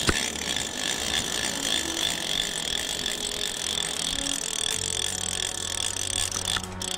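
Fly reel's click-and-pawl drag buzzing as line is pulled rapidly off the spool, starting abruptly and running for about six and a half seconds before cutting off suddenly.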